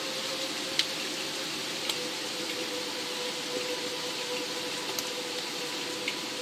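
Steady rain falling, with a few louder single drops striking now and then, over a faint steady tone.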